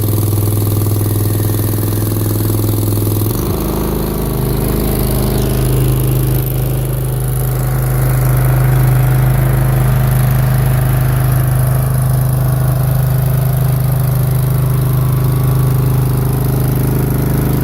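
Mini skid steer's engine running steadily. About three and a half seconds in, its speed rises to a higher, steady pitch and holds there.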